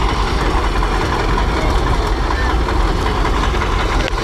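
Heavy diesel engine of a SKOT eight-wheeled armoured-carrier fire engine running steadily at close range, a deep, even rumble.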